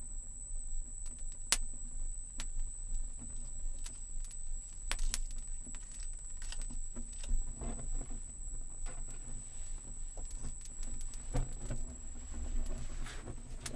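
Scattered sharp clicks and light rustling from a handled leafy branch, over a steady high-pitched insect drone.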